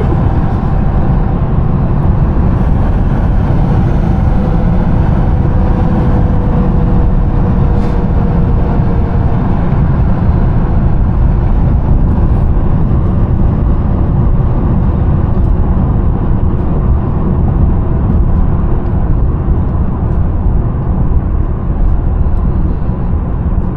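A twin-charged Mercedes driving at a steady pace, with a steady loud low rumble of engine and road noise and no clear revving.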